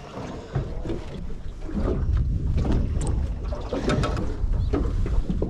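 Wind buffeting an unshielded action-camera microphone, a ragged low rumble that gets much stronger about two seconds in, with a few light knocks over it.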